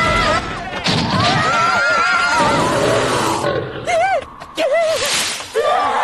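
Several animated characters' voices shrieking and yelling in alarm, the cries rising and falling in pitch, followed by a few short separate cries.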